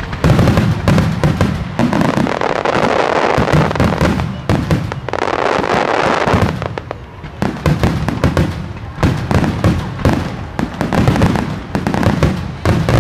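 Starmine fireworks barrage: shell bursts going off in rapid succession, with two stretches of dense crackling about two and five seconds in.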